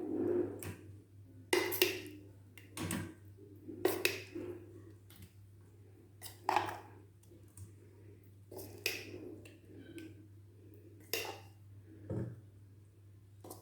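Utensils and idli plate clinking and tapping now and then, about ten short knocks at uneven intervals, as coarse millet batter is placed onto the oiled plate. A low steady hum runs underneath.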